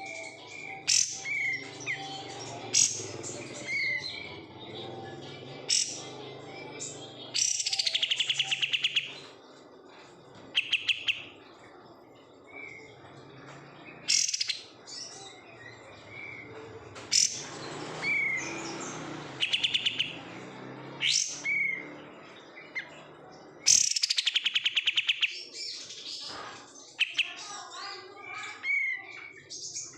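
Kapas tembak, a bulbul kept as a songbird, singing in short whistled phrases broken by fast rattling trills, over a steady low hum.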